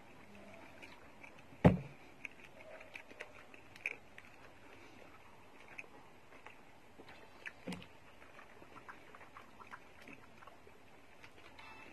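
Eating sounds: faint chewing with scattered small clicks of a fork and spoon against a soup bowl. One sharp thump comes about two seconds in, and a softer one near eight seconds.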